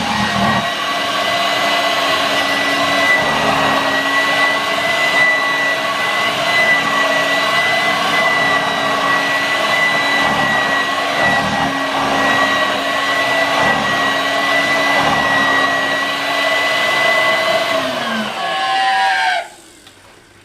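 Vorwerk VK 117-1H upright vacuum cleaner motor running at a steady high whine. There are strange noises that the owner traces to the internal flap, and a motor bearing he calls somewhat dry. Near the end it is switched off and the whine falls in pitch as the motor spins down.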